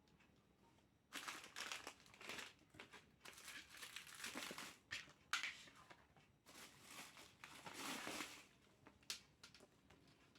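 Plastic packaging crinkling and rustling in irregular bursts as an item is unwrapped, with a sharp click about five seconds in and another near the end.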